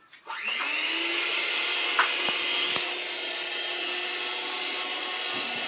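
Handheld electric mixer switching on about a third of a second in, its motor whine rising and then running steady as the beaters mix cake batter in a metal bowl. A couple of sharp knocks about two seconds in.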